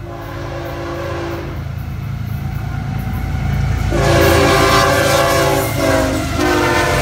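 Florida East Coast Railway diesel freight locomotive blowing its multi-note air horn in long blasts as it approaches and passes: one blast for the first second and a half, another from about four seconds in, and a third starting near the end. Under the horn the rumble of the engine and wheels on the rails grows steadily louder.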